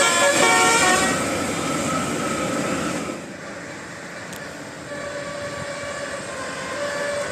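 Bus basuri (telolet) musical horn playing a quick stepped tune of notes, loud in the first second and then fading away. A fainter, steadier horn tone sounds again from about five seconds in.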